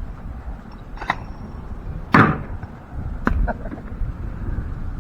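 A bucket being handled and set up: several sharp knocks and clatters about a second apart, the loudest about two seconds in with a short ringing tail.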